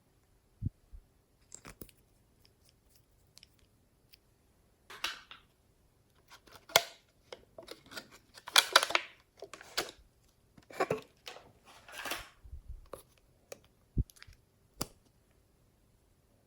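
Glossy slime being squished and stretched by hand, giving irregular bursts of sticky crackling with short pauses between, the densest in the middle.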